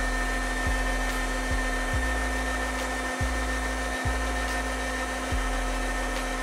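Electric meat grinder running at low speed with a sausage-stuffing tube fitted, pushing chilled mince into the casing: a steady motor whine whose low hum shifts every second or so.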